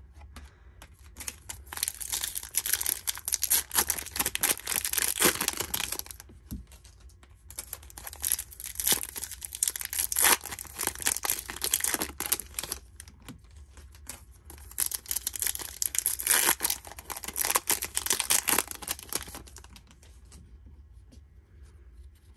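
Foil wrapper of a Topps Chrome trading-card hobby pack crinkling and tearing as it is opened by hand, in three bouts of several seconds each with short pauses between.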